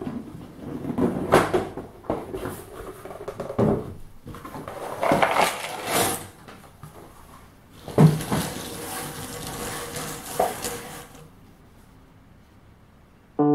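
Cardboard jigsaw puzzle box being handled and turned over, then its cardboard pieces tipped out and clattering onto a wooden table, in several bursts of rustling and clatter, the sharpest about eight seconds in.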